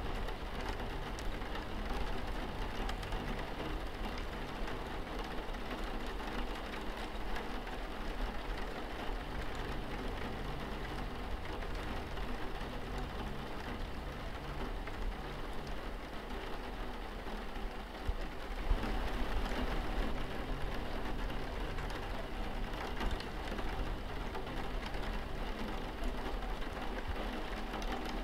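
Steady rain falling on a window pane, an even hiss of drops that swells slightly about two-thirds of the way through.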